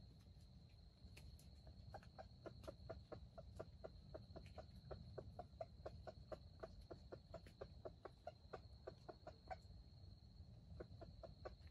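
Faint forest insect sounds: a steady high-pitched buzz, with a quick regular ticking about four times a second that begins a couple of seconds in, pauses briefly, and resumes near the end.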